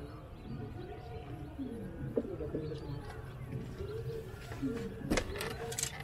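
A dove cooing: low, curving calls, about two seconds in and again around five seconds, over a steady low rumble. A few sharp clicks come near the end.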